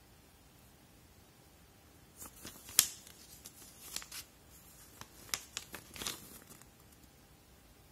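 Paper leaflet being handled and unfolded: a run of crisp paper crackles and rustles starting about two seconds in, the sharpest near three seconds, dying away after about six seconds.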